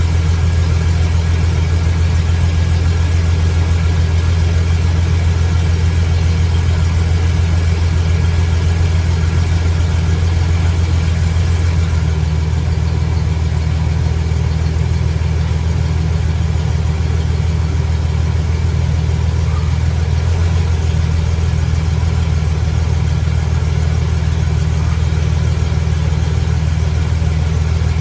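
GMC Sierra pickup engine idling steadily, a loud even low hum.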